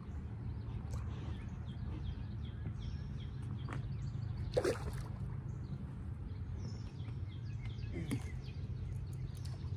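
Outdoor background noise: a steady low rumble with scattered light clicks and one sharper knock about halfway through.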